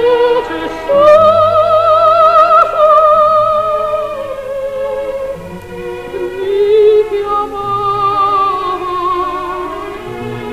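Operatic soprano singing long, slowly moving phrases with a wide vibrato. The voice rises to a held high note about a second in and sings lower after the middle.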